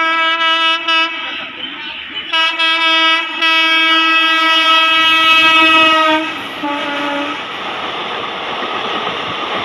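Indian Railways WAP4 electric locomotive sounding its horn at speed: a string of short toots, then a long blast of nearly three seconds. The horn's pitch drops as the engine passes, about six and a half seconds in, and a shorter, lower blast follows. Then come the rushing noise and wheel clatter of passenger coaches going by at speed.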